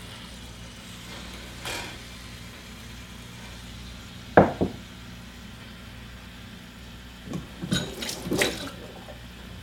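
A glass pot set down with a sharp double knock about four seconds in, then the kitchen tap running into the sink in short splashes near the end.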